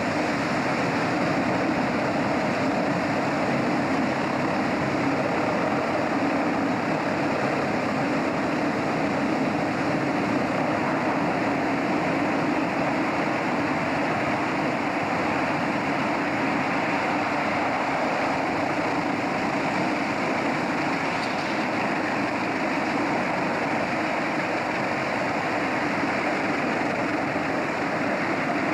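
Steady, unchanging drone of a ferry boat under way: its engine rumbling low under a constant rush of noise.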